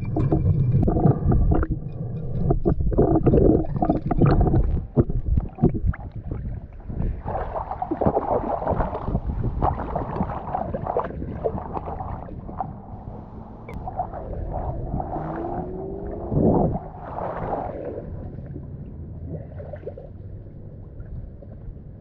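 Muffled, uneven water noise picked up by a camera held underwater while snorkelling in a river. It is louder and choppier for the first few seconds, then settles lower.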